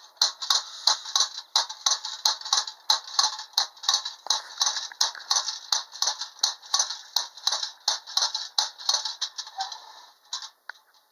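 Schylling tin wind-up Lone Ranger and Silver toy running: its clockwork spring mechanism clatters in rapid, even ticks, about five a second. It winds down near the end with a few last scattered clicks and stops.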